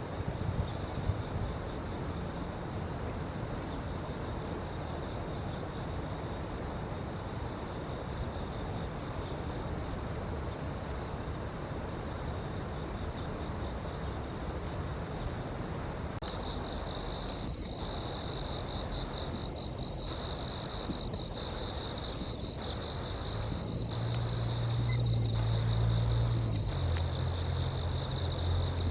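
Insects chirring steadily in high, continuous bands over a low background rumble. About halfway through the chirring changes to a faster, pulsing trill, and the low rumble grows louder near the end.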